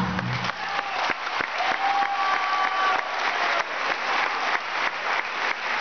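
Audience applauding, a dense, steady clapping that starts as the band's folk dance music stops about half a second in.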